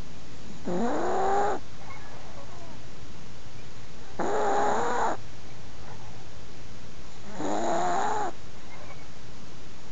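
An elderly Chihuahua snoring in its sleep: three drawn-out snores of just under a second each, about every three seconds, each with a wavering, whistly pitch, over a steady hiss.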